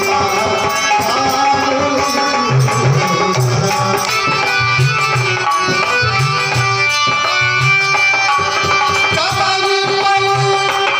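Live bhajan music: a harmonium playing sustained notes over a steady drum rhythm.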